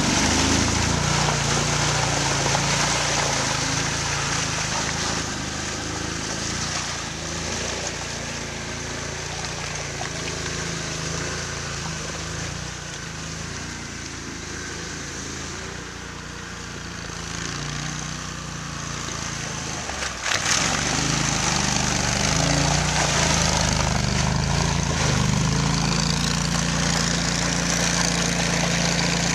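Amphibious ATV engine running while the tracked machine works through mud and water, with water sloshing around it. It quietens through the middle, then breaks off abruptly about two-thirds of the way in and comes back louder and steady.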